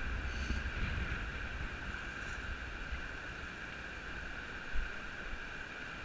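Steady rush of a stream flowing through a rocky gorge, with low wind buffeting on the microphone and a single thump about five seconds in.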